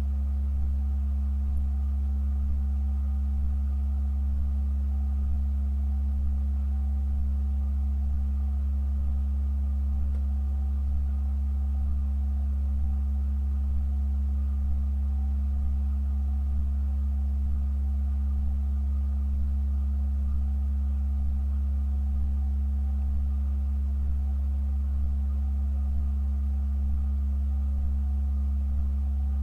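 Organ holding a low, unchanging sustained chord: a very deep bass tone with a few quieter steady pitches above it, and a faint pulse about once a second.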